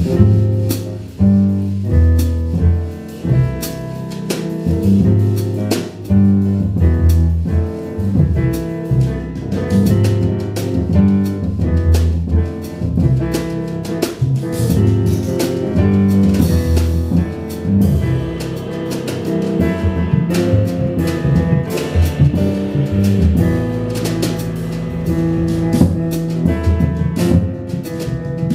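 Jazz piano trio playing live: grand piano, double bass and drum kit with frequent cymbal and drum strikes over a strong bass line.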